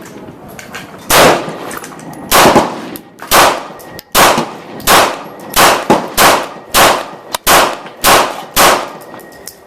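Glock 19 Gen4 pistol firing TulAmmo 9mm 115-grain rounds: about ten loud shots at a steady pace, one every half second to a second.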